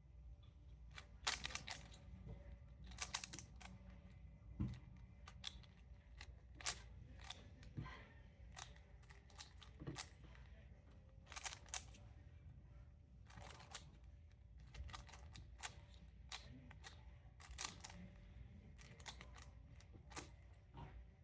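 Plastic speed cube being turned by hand, its layers clicking and clacking in quick, irregular clusters of turns.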